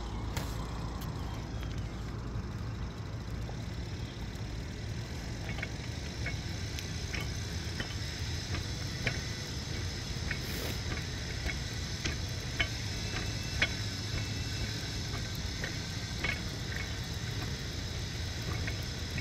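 Outdoor street ambience: a steady low hum of road traffic with a thin high insect drone over it, and light irregular ticks starting about five seconds in.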